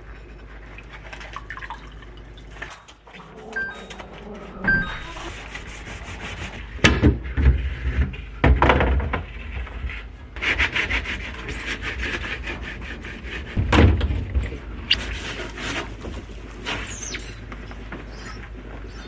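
Fridge cleaning: containers and shelf parts knocked and set down, with rubbing and scraping in between, several heavier thunks among them.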